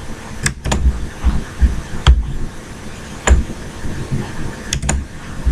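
Computer mouse clicking a handful of times, some clicks in quick pairs, over irregular low thumps.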